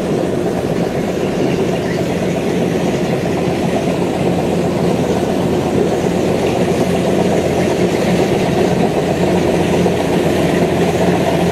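Kubota DC93 rice combine harvester's diesel engine and threshing machinery running steadily under load while it cuts standing rice.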